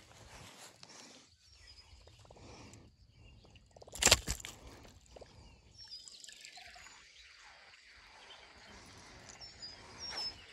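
Quiet outdoor ambience with small birds chirping in short high notes in the second half, and one sudden loud knock about four seconds in.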